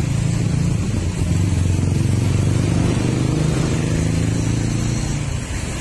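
Canter truck's diesel engine running, a steady low drone that eases off a little near the end.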